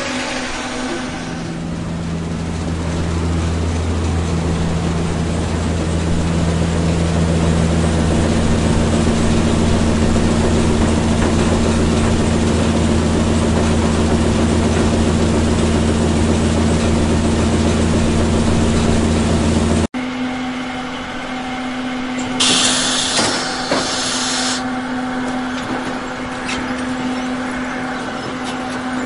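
Heavy machinery running with a steady low hum. It cuts off suddenly about two-thirds of the way through and is replaced by a different machine sound, with a loud hiss lasting about two seconds shortly after.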